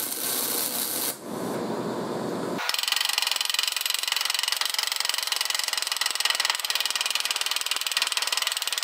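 A MIG welding arc crackles for about the first second. From about three seconds in, a small handheld grinder with a burr cuts a V-groove along the crack of a cast iron exhaust manifold, making a steady, rapid, high chatter.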